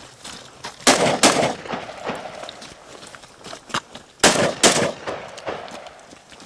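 Four rifle shots fired as two quick pairs, about a third of a second apart within each pair and about three seconds between the pairs, each with a short echo.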